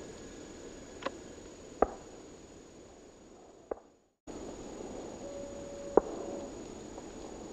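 Steady low hiss of background noise broken by a few sharp clicks. It fades out to silence about four seconds in, then comes back with one loud click and a brief steady hum.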